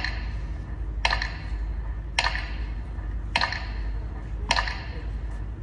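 Metronome ticking slowly and evenly, about one tick a second. Each tick is a sharp double click with a short ring, over a low steady rumble.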